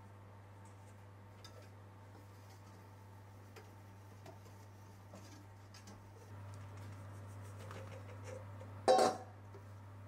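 Faint clinks and ticks of a metal sieve and a wire whisk against a stainless steel bowl as flour is sifted in and hand-whisked into cake batter, over a low steady hum. One louder metallic knock about nine seconds in.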